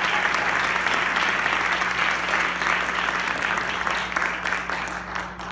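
Audience applauding; the clapping fades over the last second or so, thinning to a few last claps before it stops.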